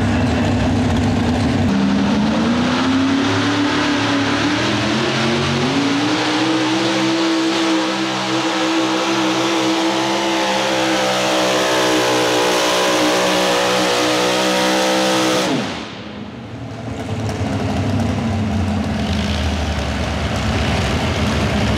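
Modified 4x4 pulling truck's big-block V8 at full throttle pulling the weight sled: its pitch climbs over a few seconds and then holds high. About fifteen seconds in, the engine note cuts off suddenly as the throttle is shut at the end of the pull, then it picks up again, lower and steadier.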